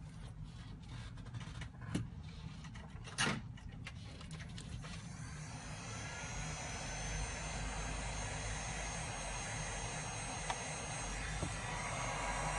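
A few sharp clicks, then a small motor spins up about five seconds in to a steady whirring rush of air, rising in pitch before it levels off.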